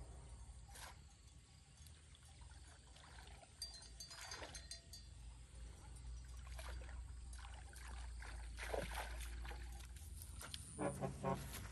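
Water sloshing and splashing in a shallow stream as a person wades and works a fishing net through it, in irregular bursts a few seconds apart.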